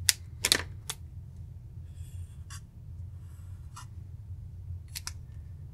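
Marker pen drawing lines on paper: three quick, sharp strokes in the first second, then softer scratchy strokes spread through the rest, over a low steady hum.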